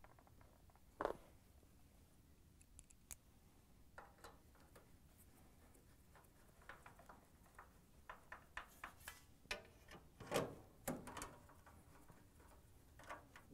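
Faint handling clatter of sheet-metal frame braces being fitted to a washer cabinet: scattered light clicks and knocks, with a quicker run about eight to eleven seconds in and the loudest knock about ten seconds in.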